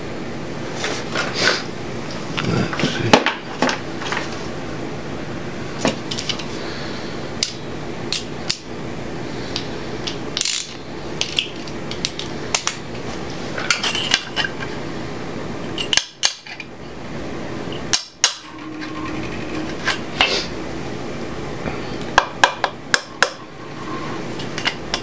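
Steel bolts and hand tools clinking and tapping against each other and against an LS 5.3L V8's front cover as the cover bolts are fitted, with a quick run of sharp clicks near the end.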